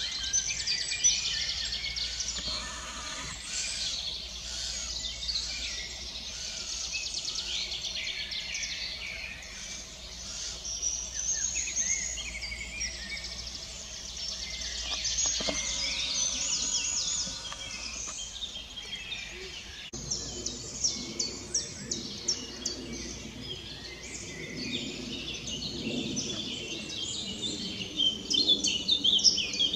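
Several songbirds singing at once: a busy spring chorus of overlapping whistles, chirps and rapid trills.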